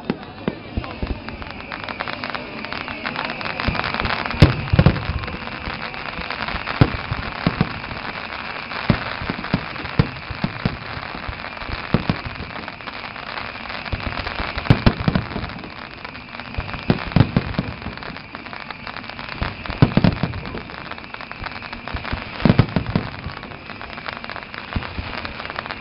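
Fireworks display: aerial shells bursting in a series of loud bangs every couple of seconds over a continuous dense crackling of smaller reports.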